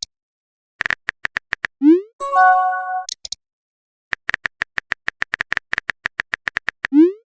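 Phone chat-app sound effects: a short run of keyboard typing clicks, a rising whoosh as a message is sent, and a chiming notification tone with a couple of high blips. Then a longer run of rapid typing clicks, ending in another rising whoosh.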